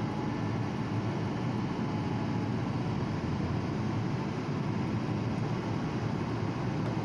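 Steady low rumble of a running engine or heavy machinery, even in level throughout, with a faint steady whine above it.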